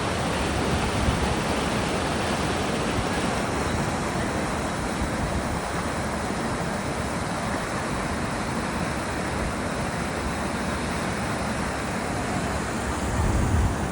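Waterfall in monsoon flow: water pouring and rushing steadily over rocks. A brief louder low rumble swells near the end.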